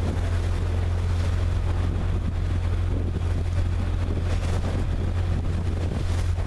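Steady low drone of a motorboat engine running under way, with wind buffeting the microphone.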